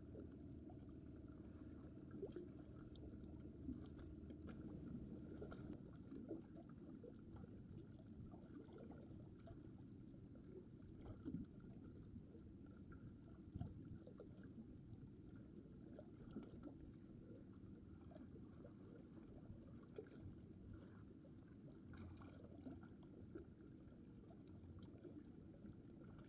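Near silence: a faint low rumble of outdoor ambience with a few soft clicks and ticks scattered through it.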